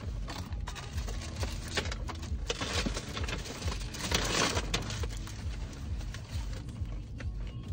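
Tissue paper rustling and crinkling as it is folded back in a cardboard gift box and a cloth dust bag is lifted out, with short papery clicks. It is loudest about four seconds in, over a low steady hum.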